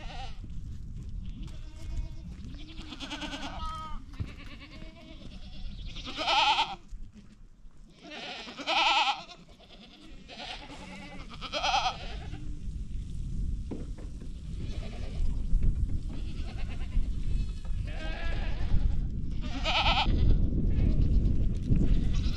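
Goats bleating over and over, about ten separate calls, many of them wavering in pitch. A steady low rumble runs underneath and grows stronger near the end.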